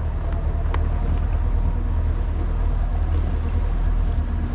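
Steady low rumble of a small fishing boat on open water, with a few faint ticks in the first second.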